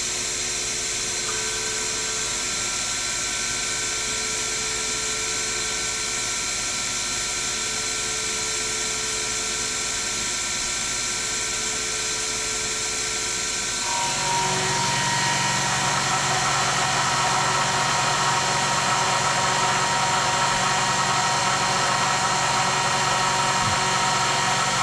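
Sherline mill's spindle motor running steadily with a whine. About halfway through it grows louder, with a lower hum and more hiss added, as the table feeds and the end mill takes a 0.5 mm pass along the edge of the brass bar.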